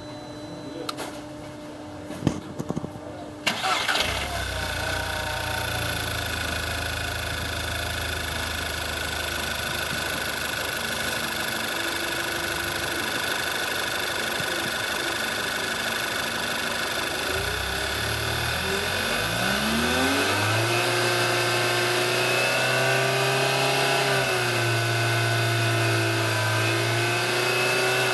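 Skoda Octavia 1.8 TSI (CDAB) turbocharged four-cylinder petrol engine starting about three seconds in and settling into a steady idle. Past the middle it is revved up, held at a higher speed for several seconds, and drops back near the end.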